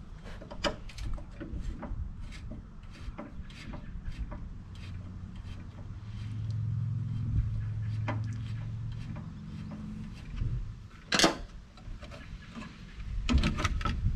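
Scattered light clicks and scrapes of hands and a screwdriver working a car headlight assembly loose, with one sharper click about eleven seconds in. A low steady hum runs under it from about six to ten seconds in.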